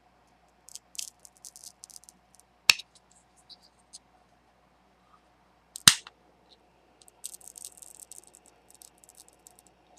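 Steel knife blade scraping and prying at the edge of an AMD FX-9590 processor's heat spreader, in short scratchy bursts, with two sharp clicks about three seconds in and just before six seconds, the second the loudest. The blade is working the heat spreader loose from its adhesive corner by corner.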